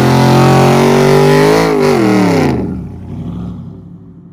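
A stroked 6.5 L Hemi V8 in a Dodge Charger, running loud through its custom exhaust and held at high revs. The pitch creeps up, then drops about two seconds in, and the sound falls away sharply soon after, leaving only a faint tail.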